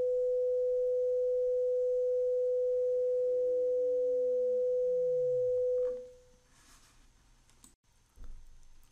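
A steady 500 Hz sine test tone with a fainter second sine tone sliding steadily down in pitch beneath it. This is a frequency-masking demonstration: the second tone is meant to become audible once it breaks out of the 500 Hz tone's masking curve. Both tones cut off about six seconds in, leaving faint clicks.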